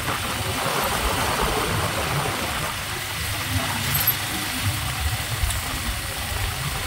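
Motorcycle running along at riding speed, with wind rushing over the phone's microphone in uneven low gusts.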